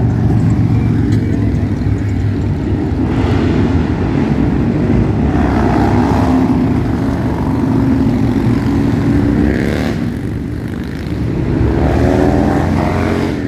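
A procession of motorcycles riding past one after another, with other road vehicles among them. Their engines make a continuous loud rumble that swells as bikes go by, with a couple of rising engine notes near the end.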